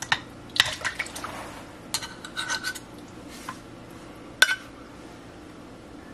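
A metal spoon clinking and scraping against the rim of a crock pot's crock in quick clusters of taps, with one sharp, ringing tap about four and a half seconds in.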